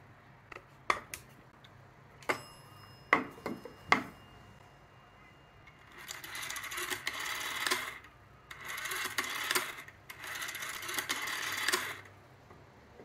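Kirk F61 rotary telephone dial being wound and released three times, each spring return a whirr of rapid ticks lasting about a second and a half. Before that, a few sharp clicks and knocks as the phone is handled, and a thin high tone for a few seconds.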